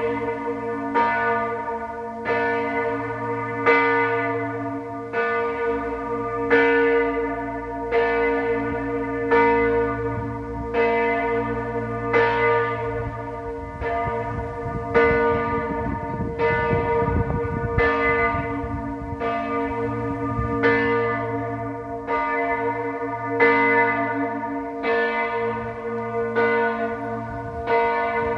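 A large swinging church bell of over 3000 kg and 176 cm across, with a strike note of B-flat, rung alone as the festive pre-ringing that announces a feast day. The clapper strikes evenly, a little more than once a second, and each stroke rings on under the next.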